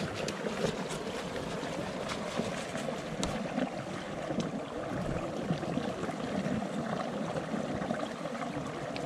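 Steady noise of moving water, with scattered faint small ticks and splashes.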